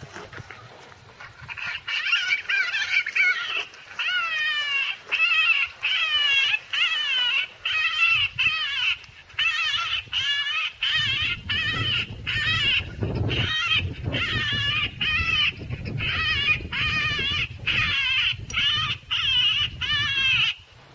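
Predator game call playing a high, wavering animal distress cry over and over, about one cry a second, starting about two seconds in, to lure coyotes in.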